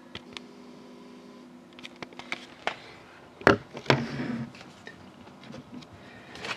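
Handling noises on a table: scattered light clicks and taps, with two louder rustling knocks about three and a half and four seconds in, over a faint steady hum that stops after a couple of seconds.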